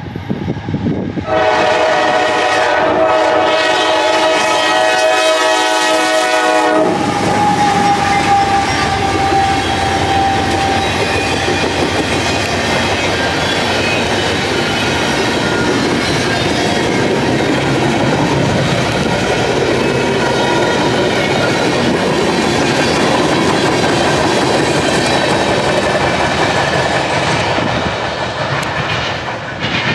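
Freight train diesel locomotive horn sounding one long blast of about six seconds, starting about a second in. Then the steady rumble and clatter of freight cars rolling past on the rails, easing off near the end as the train moves away.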